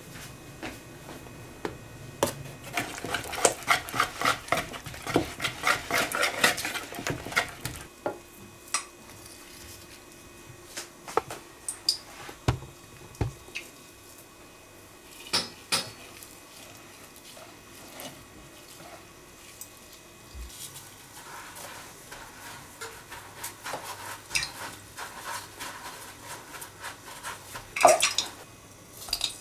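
A utensil clicking quickly and repeatedly against a plastic mixing bowl as flour is stirred into a batter, for about five seconds. Then scattered light knocks and handling sounds as a ball of food is dipped and rolled in the batter by gloved hands, with a louder clatter of the bowl near the end.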